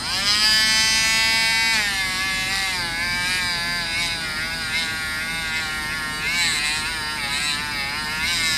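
Electric polishing wheel motor switched on, its whine rising as it spins up in the first second or two. It then runs steadily, the pitch wavering slightly from time to time.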